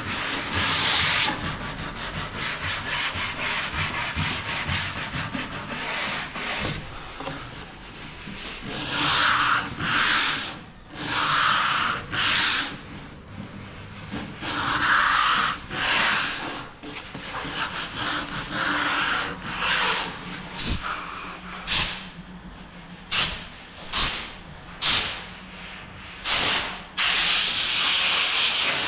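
Sandpaper rubbing on wood by hand in irregular back-and-forth strokes, breaking into shorter separate strokes with brief gaps in the second half.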